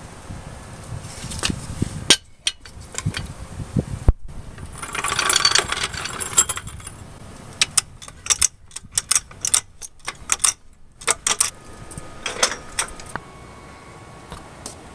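Hand-tool work under a car: a scraping rustle about five seconds in, then a run of irregular sharp metallic clicks and clunks. The sound is broken by several abrupt cuts.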